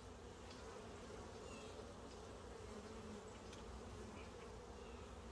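Faint, steady hum of many honey bees buzzing on a brood frame lifted from an open hive.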